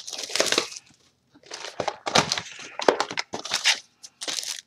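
Trading-card booster box packaging being torn open and crinkled by hand, in about four short bursts.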